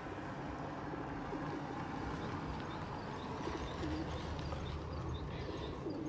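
Feral pigeons cooing, a few low soft coos over steady background noise, with faint high bird chirps joining in the second half.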